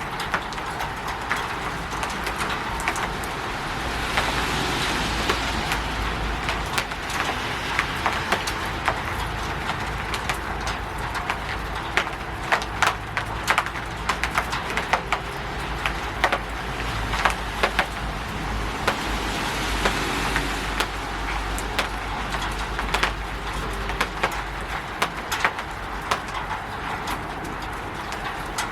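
Steady rain falling on a roof: a dense hiss with many sharp drop taps. A low rumble swells twice.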